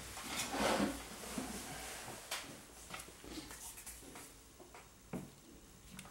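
Quiet handling noise: a brief rustle about a second in, then a few light clicks and taps as hands come in to grip a camera body on a wooden tabletop.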